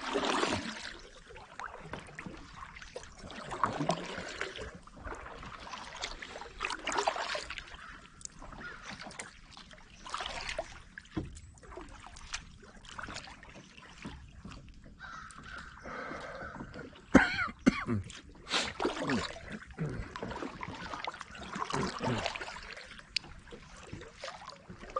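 Kayak paddle strokes: the blades dip and pull through the water in a swishing rhythm every few seconds, with water trickling off them. A single sharp knock about two-thirds of the way through is the loudest sound.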